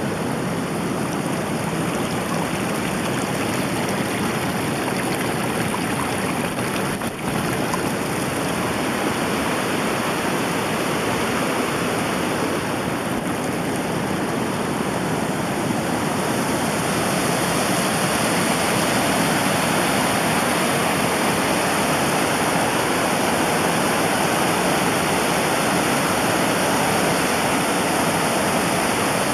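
Rushing water: a steady, even rush that gets a little louder about halfway through, with a brief dip about seven seconds in.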